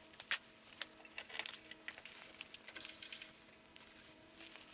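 Faint scattered small clicks and metallic taps from setting a table saw's blade tilt to a bevel angle, over a faint steady hum.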